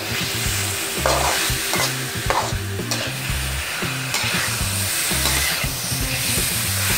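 A metal spatula scraping and stirring chopped frog meat around a hot metal wok, over a steady sizzle of frying. A few louder scrapes come about one to two and a half seconds in.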